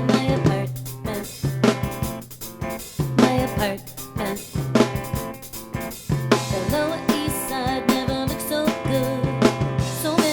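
A band's song with a drum kit playing a steady beat of kick and snare hits under sustained pitched instruments holding repeated low notes.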